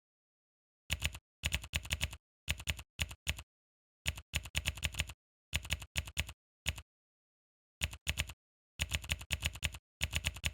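Keyboard typing: quick runs of key clicks in short bursts with brief pauses between them, starting about a second in.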